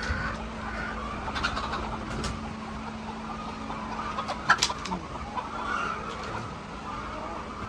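A flock of hens clucking steadily, with a few sharp clicks or knocks, the loudest about four and a half seconds in, over a steady low hum.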